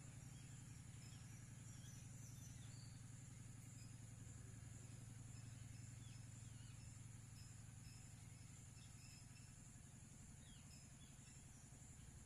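Faint outdoor nature ambience: a steady high-pitched insect drone with scattered faint bird chirps over a low steady hum.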